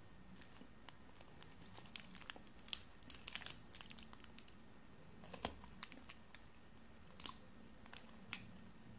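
Plastic wrapper of a Munch chocolate wafer bar crinkling as it is slowly peeled open by hand, in scattered sharp crackles, busiest from about two to three and a half seconds in, then a few single crackles.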